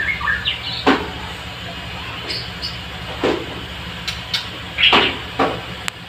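Caged songbirds giving a few short chirps and brief high whistles, with several sharp knocks or clicks scattered through, over a steady low hum.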